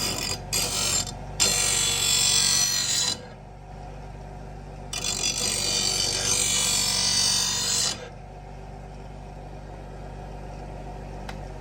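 Steel lawn mower blade being ground on a bench grinding wheel: a few short touches, then two longer passes of about three seconds each, with a loud grinding hiss each time the blade meets the wheel. Between and after the passes the grinder's motor runs on with a steady hum.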